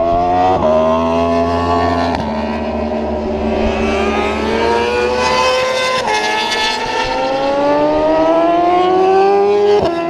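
Superbike racing motorcycle engine accelerating hard under full throttle. The pitch climbs in each gear and drops sharply at each upshift, with several gear changes, each gear held longer than the last.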